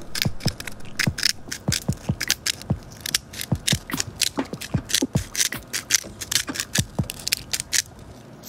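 Hand-twisted grinder cracking Himalayan salt crystals: a rapid run of gritty, ratcheting clicks that stops near the end.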